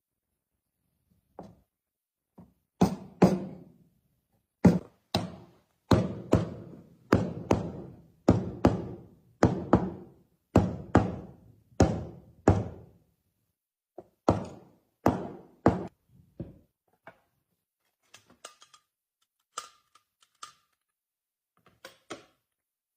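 Hammering on wood: a long series of sharp knocks, often in pairs, each with a short ring. They get weaker after about 13 seconds and give way to a few light taps and clicks near the end.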